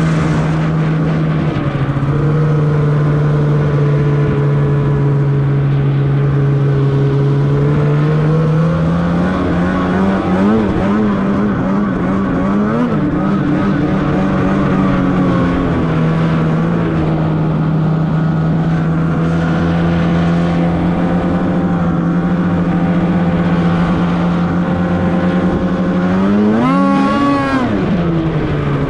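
Polaris Khaos 850 snowmobile's two-stroke engine running under way over snow, mostly at steady revs. The revs waver up and down for several seconds in the middle, and near the end the engine revs up sharply and drops back.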